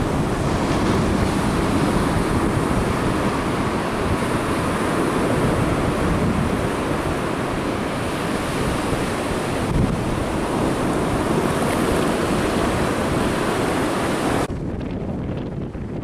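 Small surf washing onto a sandy beach, mixed with wind buffeting the microphone: a steady rushing noise. Near the end it cuts abruptly to softer, duller wind noise.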